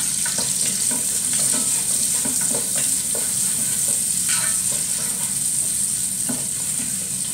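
Sliced onions sizzling in hot oil, just added to the pan, while a wooden spatula stirs them with frequent short scrapes and taps against the pan.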